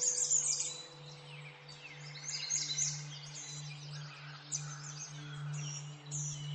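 Background track of birds chirping rapidly over low, steady, held musical tones.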